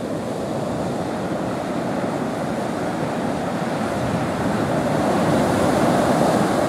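Heavy surf from a hurricane swell breaking and washing up the beach: a steady rush of noise that grows louder about five seconds in.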